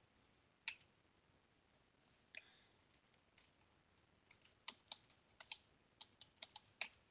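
Faint clicks of keys on a computer keyboard: a few single presses in the first few seconds, then a quick run of about a dozen keystrokes near the end.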